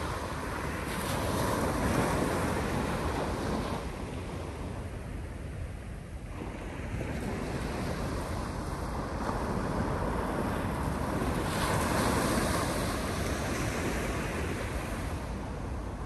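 North Sea surf breaking and washing up the beach, swelling twice with a lull between, over a steady low rumble of wind on the microphone.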